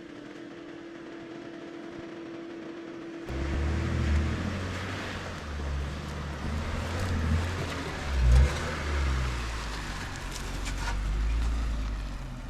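A steady hum for about three seconds, then a two-wheel-drive vehicle's engine working hard through a mud pit, its pitch rising and falling, with a heavy bump about eight seconds in.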